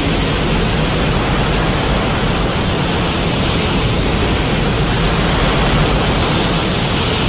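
Loud, steady rushing noise with no pitch or rhythm: a Burning Godzilla sound effect from the Heisei-era Godzilla films.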